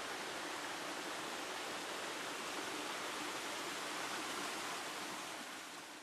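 Small waterfall cascading over rocks: a steady rush of falling and splashing water, fading out at the end.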